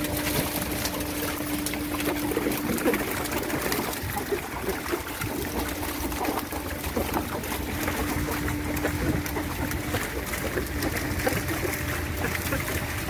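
Freshly netted sea catfish flapping and splashing in the wet wooden hull of a boat, with water dripping and running off the seine net as it is emptied. A low steady hum comes and goes underneath.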